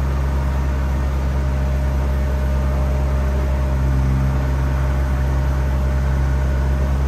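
Truck-mounted crane's diesel engine running steadily during a lift: a continuous low hum.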